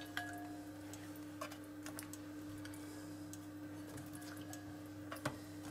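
Faint, scattered light clicks and taps as milk-soaked biscuits are dipped in a glass bowl and laid into a square metal tin, with a slightly sharper click near the end. A steady low hum runs underneath.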